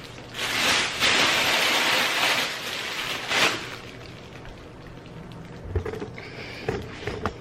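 Packaging rustling and crinkling as it is handled, loudest for about three seconds early on, then quieter handling sounds and small clicks.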